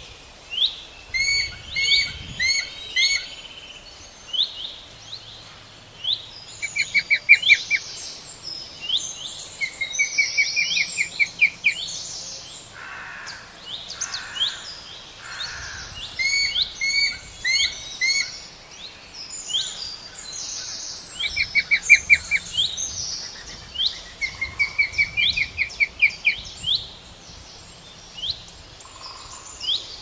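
Several songbirds singing and chirping together: short repeated chirps from more than one bird, with rapid trills of about ten quick notes coming back every few seconds.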